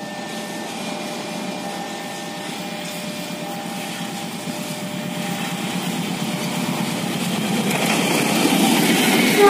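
Diesel locomotive at the head of a passenger train approaching along the track, its engine and running noise growing steadily louder as it nears.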